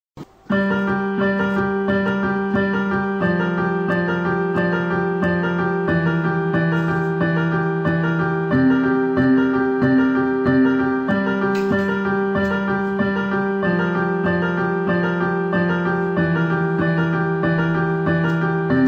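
Background piano music: a steady pattern of repeated notes over low notes that change every couple of seconds, starting about half a second in.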